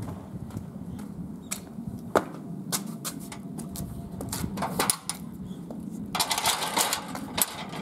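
Footsteps and scattered sharp clicks and taps from a handheld camera being carried while walking, over a steady low hum. A hissy rustle comes in about six seconds in and lasts over a second.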